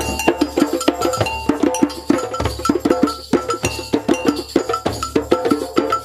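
Group of djembes played by hand in a fast, interlocking rhythm, with short ringing notes recurring among the strikes.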